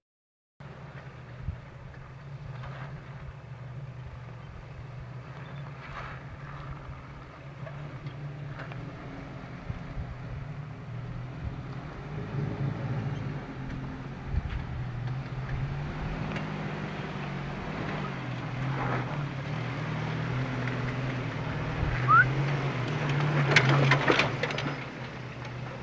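Lifted Toyota pickup's engine running at low revs as the truck crawls slowly over rocks: a steady low drone that grows louder as it comes closer, with a few scattered knocks and a short squeak near the end.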